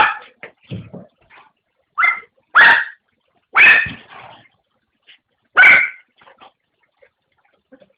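A dog barking in short, loud barks, about five of them spread over the first six seconds, with quieter yelps between, as it fights a cat; it falls mostly quiet near the end.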